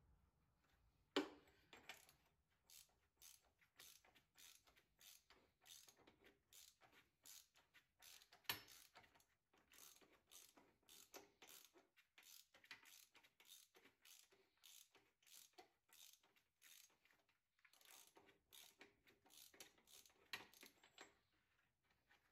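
Ratchet wrench clicking faintly in a steady run of short ticks, a couple of strokes a second, as a diesel injector is turned out of the cylinder head, with two louder metallic knocks among them.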